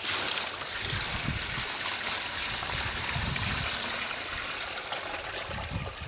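Water poured from a 5-gallon plastic bucket into the tub of a portable washing machine, a steady pour that starts suddenly and eases a little near the end, filling the machine for the rinse cycle.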